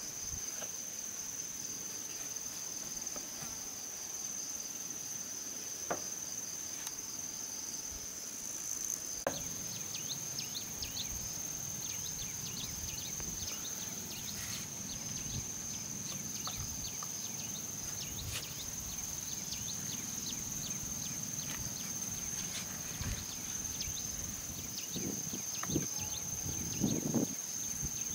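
Insects chirring steadily in one unbroken high-pitched tone. A few soft knocks come near the end.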